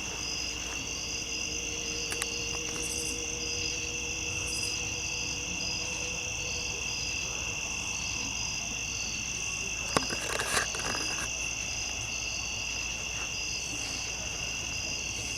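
Crickets singing in a steady night chorus: a continuous high trill with a regular pulsing chirp over it. About ten seconds in there is a single sharp click followed by a brief rustle.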